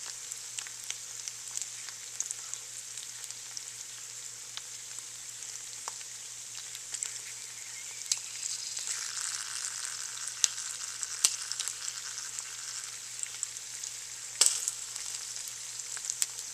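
Chicken skin frying in a pan as its fat renders out: a steady sizzle with many small crackles and pops throughout, and one louder pop near the end.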